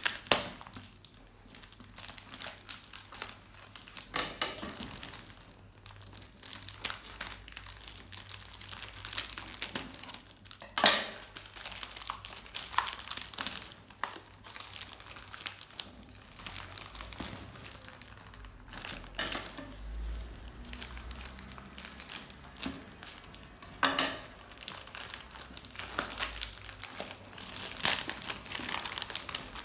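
Grey plastic courier mailer bag being torn open and crumpled by hand: continuous irregular crinkling with a few sharp, louder rips of the plastic.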